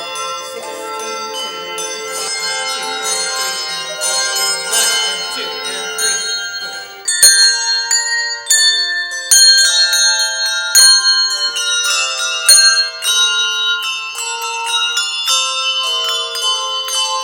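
A handbell choir playing a piece: overlapping bell chords ringing on for about the first seven seconds, then louder, sharply struck notes that are cut short, in a detached, percussive passage.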